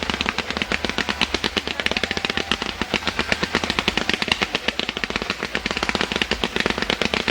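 Fireworks crackling in a fast, unbroken string of sharp pops, many a second, like a burst of machine-gun fire.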